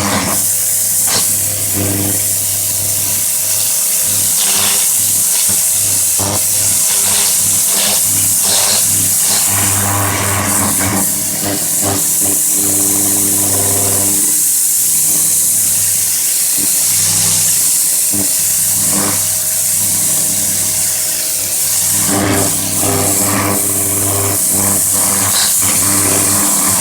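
Petrol pressure washer engine running steadily under load, with the hiss of the water jet spraying.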